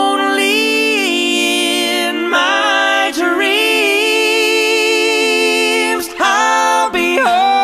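Song music: unaccompanied voices singing long held notes in harmony, changing chord every second or two.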